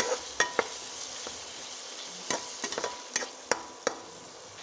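Chopped tomato and onion masala sizzling in oil in a frying pan, with a flat spatula scraping and knocking against the pan a dozen or so times as the mixture is stirred.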